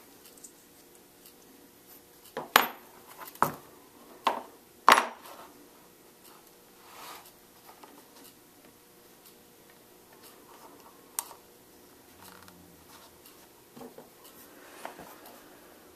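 Small metal leatherworking tools and hardware knocking and clinking on a work table. There are four sharp clinks about 2.5 to 5 seconds in and another near 11 seconds, with faint handling rustle between.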